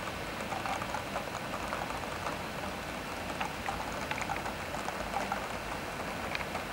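Steady rain falling, with many small, irregular drop hits close by.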